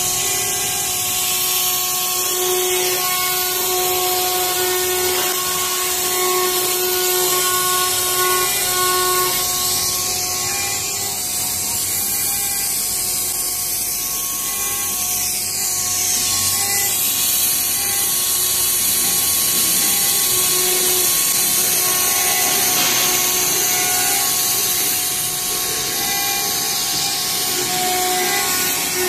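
CNC router spindle milling an aluminium panel: several steady high-pitched tones from the spindle and cutter over a loud, steady hiss.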